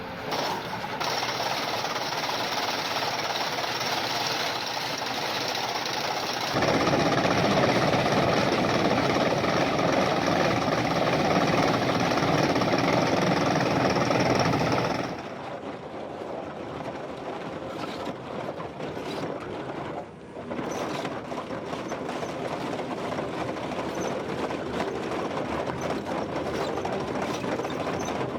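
Excavator-mounted KEMROC EK chain cutter working in stone, with the excavator's engine running: steady, dense mechanical noise that changes abruptly several times and is loudest in the middle stretch.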